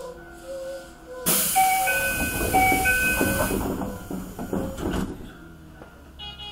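Toei 5300 series train's compressed-air system letting out a sudden loud hiss for about two seconds as the train departs, with short alternating electronic tones and a few low clunks during it. A brief high beep comes near the end.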